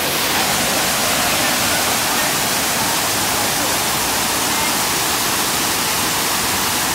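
Waterfall pouring over rock ledges into a pool: a steady, even rush of falling water.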